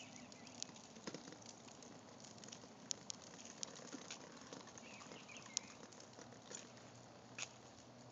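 Quiet outdoor background with faint, irregular light clicks and ticks scattered through it.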